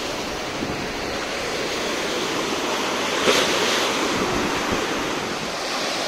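Heavy surf of a stormy Mediterranean sea: waves breaking and washing up the sand in a continuous rush. One wave crashes louder about three seconds in.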